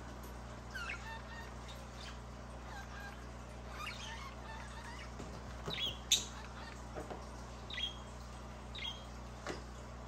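Budgerigar chirping in short, scattered calls, some gliding up or down in pitch, with a sharp click about six seconds in.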